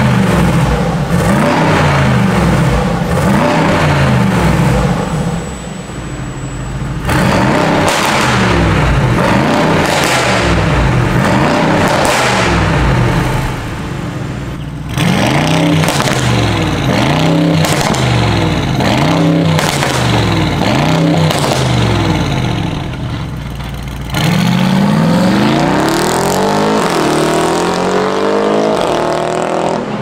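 Mercedes-AMG G63's twin-turbo V8 through a catless Fi Exhaust, revved over and over in short throttle blips. Near the end it accelerates away with a rising pitch, broken once by an upshift.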